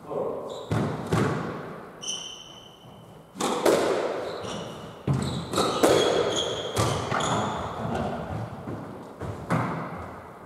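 Squash rally: a series of sharp smacks of the ball off rackets and court walls, each echoing briefly in the enclosed court, with shoes squeaking on the wooden floor.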